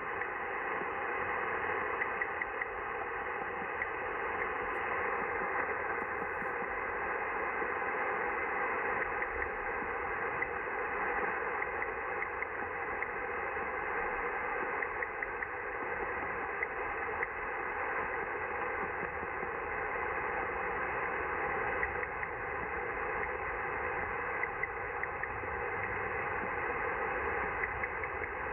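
Shortwave receiver audio from an old Yaesu FRG-100B: a steady, muffled hiss of static with a strange, unidentified ticking/clicking signal in it, made up of many quick irregular clicks.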